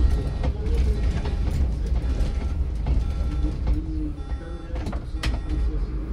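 City bus driving, heard from the driver's cab: a steady low engine and road rumble, with occasional rattles and knocks.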